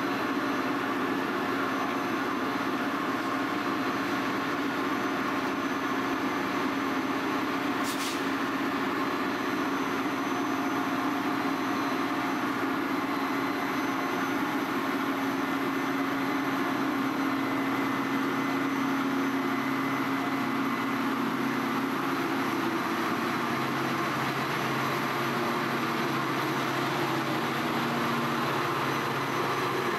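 Metra commuter train's diesel locomotive running at the station, a steady engine hum with pitched tones that shift about twenty seconds in, under a constant hiss of heavy rain. A brief sharp click sounds about eight seconds in.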